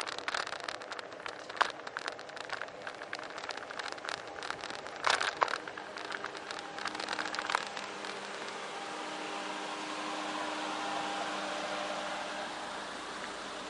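Bicycle and its mounted camera rattling and clicking over a rough paved path, with a few sharp knocks, about a second and a half and five seconds in. From about eight seconds in the clicking gives way to the steady hum of a kei truck's engine idling close by as the bicycle passes it.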